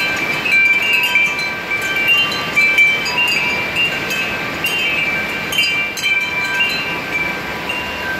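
Wind chimes ringing on and off, several notes overlapping, over the steady hiss of rain falling during a thunderstorm.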